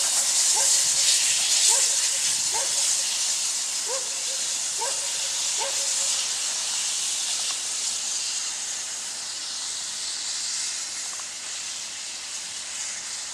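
Steam hissing from a double-headed pair of German class 01 steam locomotives, loud at first and slowly fading. Over the first six seconds a series of short falling chirps repeats about once a second.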